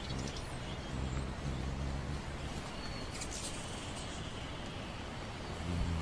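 Hovering hummingbirds' wings humming low and unevenly, fading and swelling, over a steady hiss.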